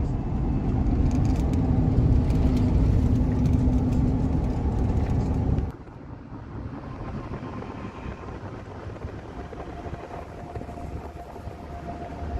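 Car road noise from a moving car: a loud, steady low rumble that cuts off abruptly about six seconds in, leaving a much quieter, even hiss with a faint steady hum.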